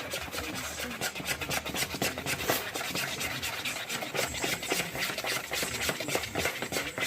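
Muffin batter being stirred by hand in a mixing bowl: a utensil scraping round the bowl in quick, repeated strokes.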